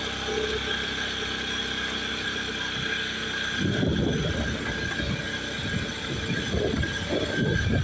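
2017 Honda Scoopy scooter's single-cylinder engine running steadily on a test ride after a routine service, with irregular low rumbles joining in from about halfway. No rattle stands out, and the mechanic finds the service alone was enough to cure the noise.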